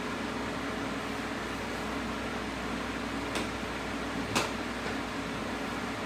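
A steady machine hum with a thin steady tone in it, and two sharp clicks about a second apart near the middle, the second louder.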